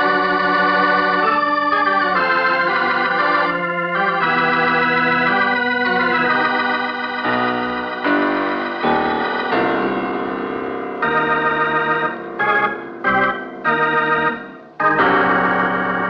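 Opening theme music of an old-time radio drama. Long held chords with moving inner lines change to short, repeated stabbed chords about eleven seconds in, and a brief break comes before a final full chord near the end.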